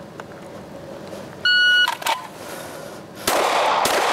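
A shot timer gives one electronic beep, a steady tone about half a second long, about a second and a half in: the start signal for the drill. Near the end a loud, steady rushing noise sets in.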